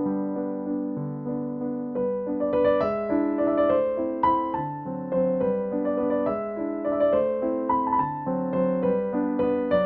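Background music: a slow, gentle piano piece, one note or chord after another in a steady rhythm.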